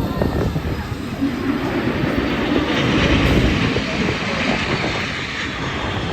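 An aircraft flying past: a steady rushing roar that swells about halfway through.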